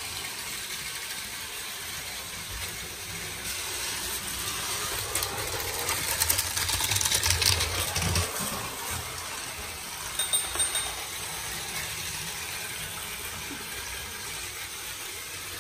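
Battery-powered toy Shinkansen trains running on plastic track: a steady motor whir with fast clicking and rattling of wheels over the track joints, growing louder about halfway through as a train passes close.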